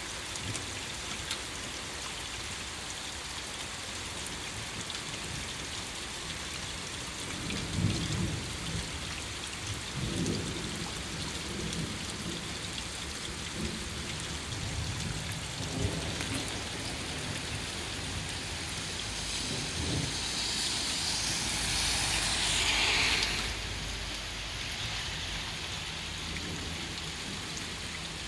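Steady rain during a thunderstorm, with low rolls of thunder about eight and ten seconds in and again later on. A louder rushing swell builds about twenty seconds in and cuts off suddenly.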